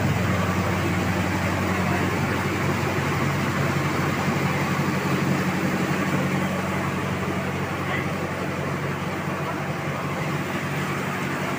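Rice milling machinery running with a steady, loud mechanical hum and a grinding rush of grain.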